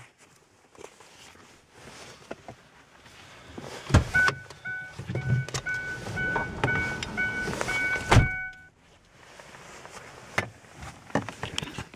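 A vehicle door opens with a knock and the door-ajar warning chime beeps steadily, about two beeps a second, until the door shuts with a thump about four seconds later and the chime stops.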